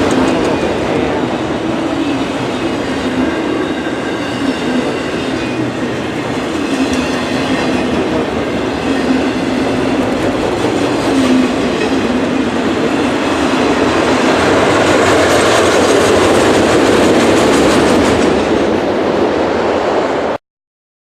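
Freight cars of a long CN manifest train rolling past, the wheels clicking over the rail joints in a steady rumble. The sound cuts off abruptly near the end.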